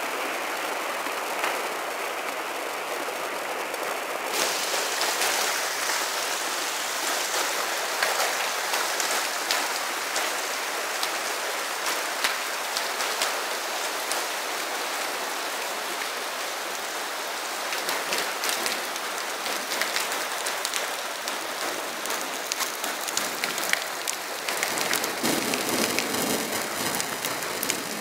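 Hailstorm with heavy rain: a dense, steady clatter of hailstones and rain hitting hard surfaces, with many separate sharp ticks of individual stones, growing fuller in the last few seconds.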